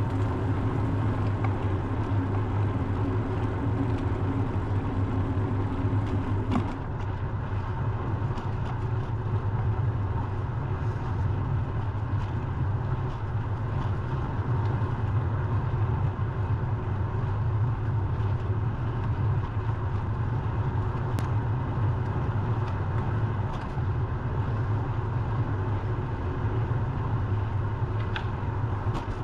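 Steady low rumble of road traffic heard from a moving bicycle. A higher hum drops out about six and a half seconds in.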